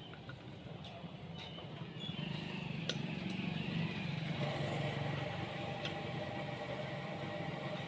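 A motor vehicle engine running and growing louder about two seconds in, with a falling whine and then a steady hum. A few light metallic clicks sound in the first three seconds.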